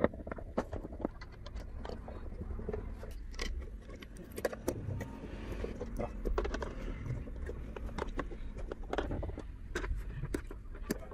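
Fan screws being driven with a hand screwdriver into an all-in-one liquid cooler's radiator: irregular small clicks and rattles of metal screws, screwdriver and plastic fan frames being handled.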